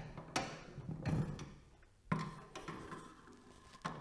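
Screwdriver working the mounting screws of a be quiet! Dark Rock Pro 4 CPU cooler through its top, with a few sharp metallic clicks about a third of a second and two seconds in, the second followed by a faint steady tone.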